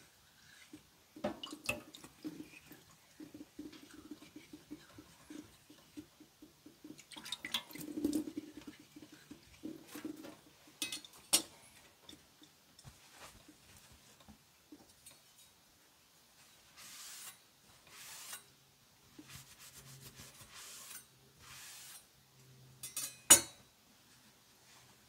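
Chef's knife being polished on a wet whetstone: a run of quick, rhythmic scraping strokes, then scattered single scrapes, and a sharp clack near the end.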